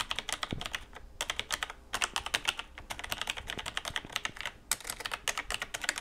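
Typing on a Logitech G613 wireless mechanical keyboard with Romer-G tactile switches: a quick, dense run of key clicks with a few brief pauses.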